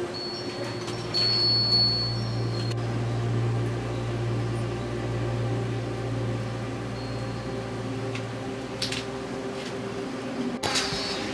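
Hanging Japanese wind chimes (fūrin) ringing with a clear high tone for the first few seconds and again near the end, over a steady low hum that fades about eight seconds in.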